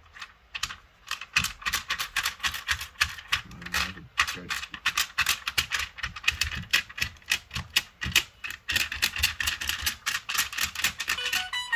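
Rapid run of short key clicks, several a second, like typing on a smartphone's touchscreen keyboard with key sounds on, ending with a few short keypad beeps.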